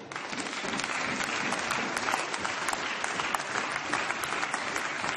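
Members of a parliamentary chamber applauding: many hands clapping, starting abruptly and holding steady.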